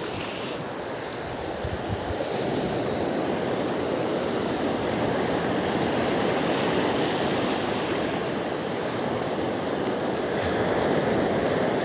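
Small waves breaking and washing up a pebbly beach at the water's edge: a steady rushing that swells and eases gently.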